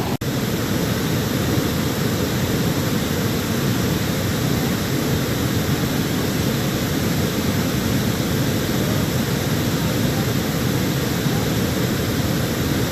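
Steady rushing outdoor noise by a river, heaviest in the low end, with a split-second dropout just after the start.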